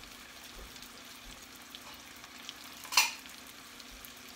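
Chicken pieces browning in oil in a frying pan, sizzling steadily with light crackles. About three seconds in comes one short, sharp clink or clatter, the loudest sound.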